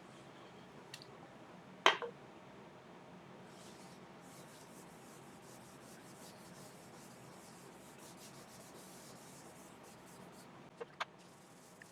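Paper towel rubbing finishing oil onto a walnut bowl on the lathe: a faint, steady rubbing. One sharp knock comes about two seconds in, and two small clicks come near the end.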